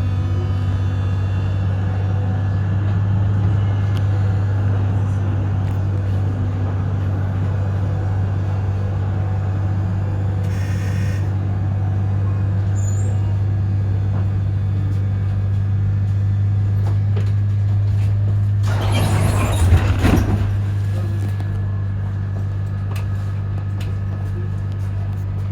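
Z-class tram running with a steady low hum. There is a brief hiss about ten seconds in, and a louder rattling, hissing burst of about two seconds near the end.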